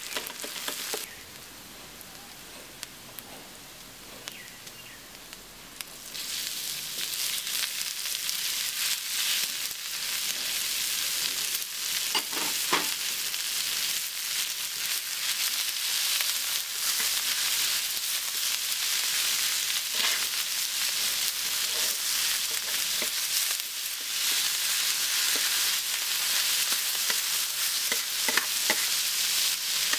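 Onions and minced beef frying in ghee on a hot iron tawa: a quiet sizzle at first that jumps much louder about six seconds in and then holds steady, with a metal spatula scraping across the pan a few times.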